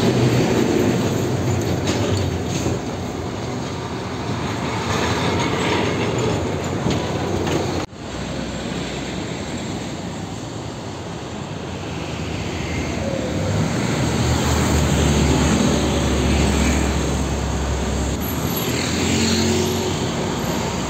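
Heavy Mitsubishi Fuso diesel cargo trucks driving past on the road, engines running under load with tyre and traffic noise. The sound drops out for an instant about eight seconds in. A deep engine rumble swells louder around two thirds of the way through as a truck draws near.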